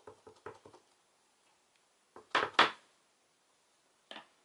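Clear acrylic stamp block being handled and knocked into place against a plastic Stamp-a-ma-jig on the craft mat: light clicks at first, then a couple of sharp clacks about halfway through and a lighter tap near the end.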